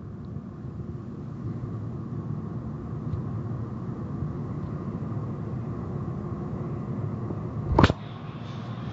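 Steady low rumble of car wash machinery heard from the hallway beside the wash bay, with a single loud thump near the end.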